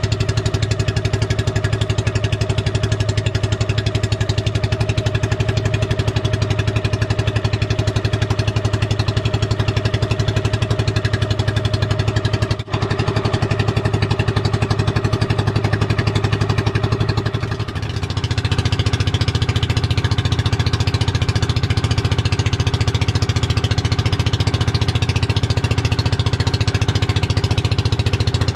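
Engine of a small motorized outrigger boat (bangka) running steadily underway, a fast even putter. It drops out for an instant about halfway, then runs louder and harsher for the last third.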